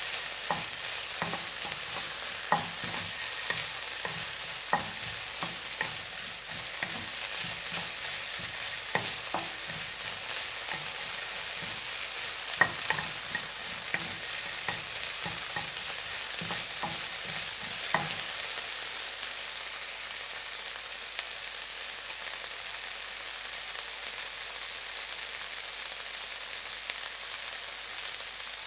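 Food frying in a hot pan: a steady high sizzle with frequent sharp crackling pops, the popping thinning out about two-thirds of the way through, leaving a smoother sizzle.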